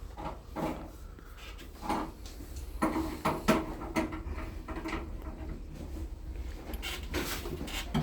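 Irregular knocks, clatters and scrapes of parts being handled during an air conditioner installation, with a busier cluster of strikes about three to four seconds in.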